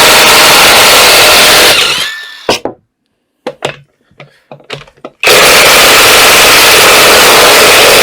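Electric power wrench spinning wheel bolts loose, run twice for about two seconds each, very loud, its motor whine falling away as it stops each time. Short clicks and knocks come between the two runs.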